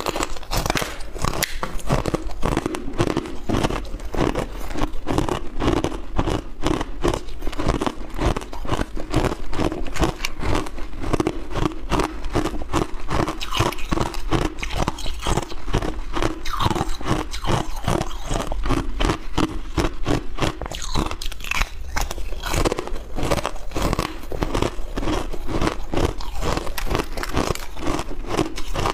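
Frozen ice being bitten and chewed close to a clip-on microphone: rapid, continuous crunching, several crunches a second.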